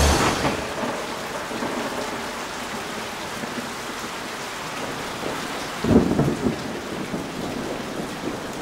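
Steady rain falling, with a short low rumble of thunder about six seconds in.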